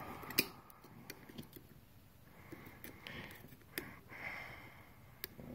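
Faint, irregular light clicks of a steel pick and a small advance spring knocking against the advance weights and posts of an MSD distributor while the spring is worked onto its post.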